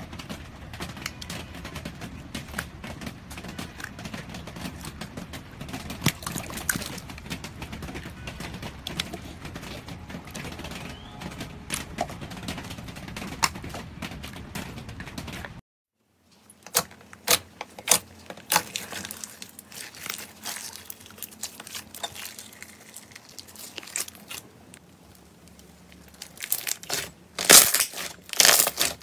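Slime being pressed and kneaded by hand, giving a steady stream of small crackles and pops. About halfway through it stops dead, then a second slime is squeezed with scattered pops that grow louder and denser near the end.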